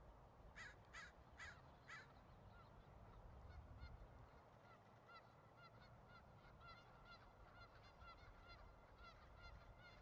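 Faint bird calls: four harsh caws in quick succession in the first two seconds, then a long string of short, repeated high chirping notes over a low background rumble.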